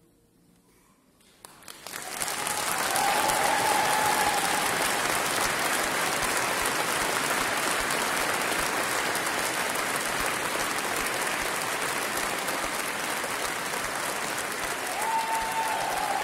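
Audience applause: after a brief hush as the last note dies away, clapping breaks out about a second and a half in, swells quickly and holds steady.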